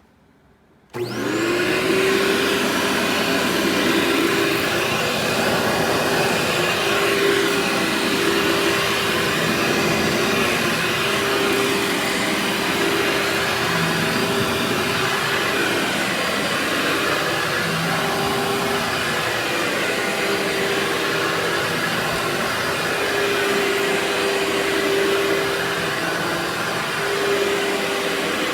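Vacuum cleaner switched on about a second in, its motor spinning up with a rising whine and then running steadily at full speed.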